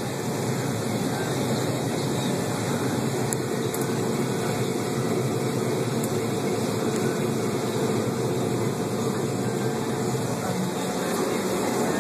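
Combine harvester running with a steady, even drone, heard from inside the cab while its unloading auger spouts grain.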